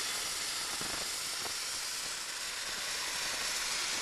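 Steam blowing out of a hand-opened valve on a steam pipe, a steady hiss.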